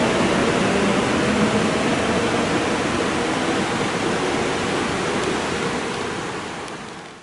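Rumble of a departing Nagoya subway train dying away down the tunnel, an even roar of wheels on rail echoing in the underground station that slowly weakens, then fades out completely near the end.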